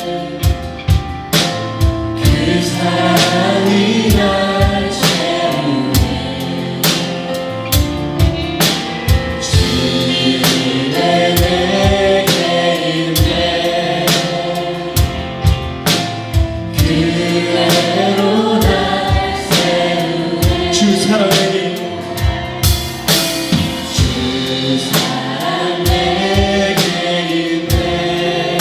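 A praise band and singers performing a contemporary worship song, with voices carrying the melody over a steady drum beat.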